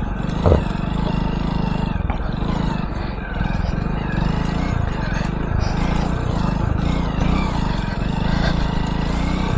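Hero Splendor motorcycle's single-cylinder four-stroke engine running steadily at low speed as it is ridden over grass and mud. There is one short knock about half a second in.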